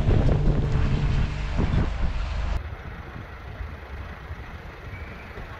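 Low road and engine rumble of a camper van driving, heard from inside the cab, with faint music fading under it at first. About two and a half seconds in it cuts suddenly to a much quieter, even outdoor background.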